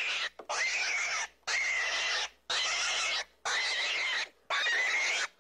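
Rabbit call sound effect: a run of short, hissy calls, each just under a second long with a thin wavering whistle in it, repeating about once a second, six in all.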